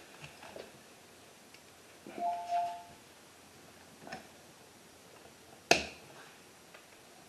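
Wire cutters snipping through a house wire at an outlet, one sharp snap about six seconds in. Before it come a few faint clicks of handling and a brief high tone a little after two seconds.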